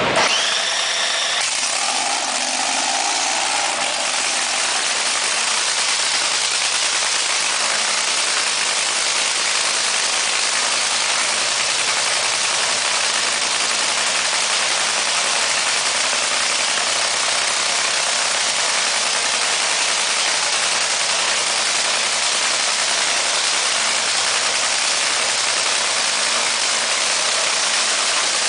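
Top fuel dragster's supercharged nitromethane-burning V8 running at a steady idle, very loud.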